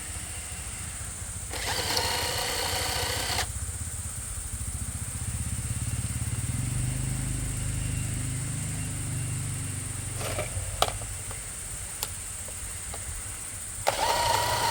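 An engine running steadily with a low rumble, joined twice by a short, louder whining burst and a couple of sharp clicks.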